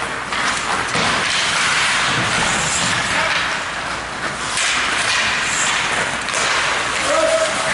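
Ice hockey play: skate blades scraping and carving on the ice in a steady noisy hiss, with a few sharp knocks of sticks and puck.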